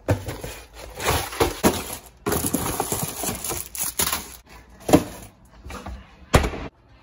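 Rummaging in a kitchen cabinet: bumps and knocks of items on a turning shelf and the rustle and knock of a cardboard microwave-popcorn box being handled, with a sharp knock near the end.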